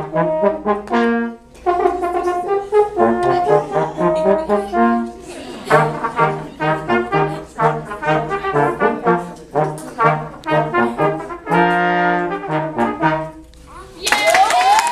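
A school low brass ensemble of trombones and French horns playing a tune in short, detached notes, with a brief break about a second and a half in and a held chord before the last notes. Just before the end the playing stops and applause and cheering break out.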